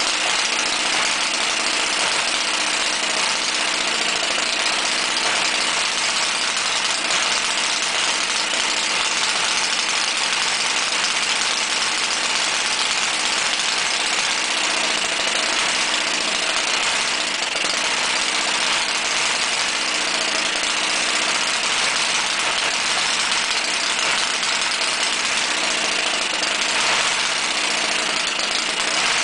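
Model air-cooled 90-degree V-twin engine, fitted with two ignition systems, running steadily.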